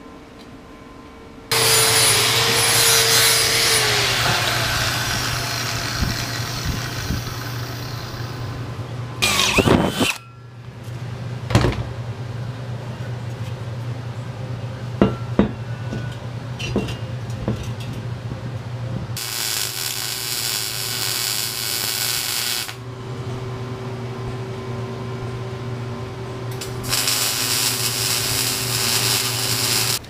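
MIG welding and angle grinding on thin steel plate, in several separate stretches of loud, hissing tool noise over a steady hum. Short pauses between them hold a few sharp metal knocks.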